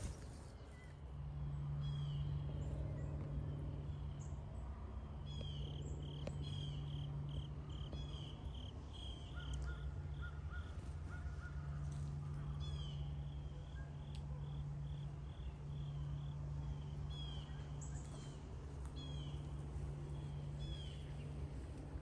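Wild birds calling: many short chirps and quick descending notes, with runs of rapid repeated high notes at one pitch, over a steady low hum that stops and starts every few seconds.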